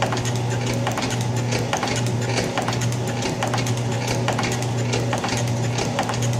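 Old Atlas metal shaper running: the ram strokes back and forth as the tool takes a 20-thousandths cut across a steam engine box bed casting. A steady motor hum with short dips, and repeated clicks of the stroke and the ratchet feed.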